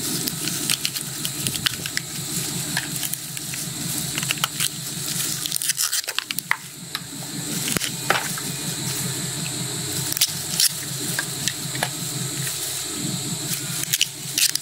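Squelching and crinkling as soft plastic yogurt cartons are squeezed and scraped out with a knife over a basin, with many small clicks throughout, over a steady low rumble.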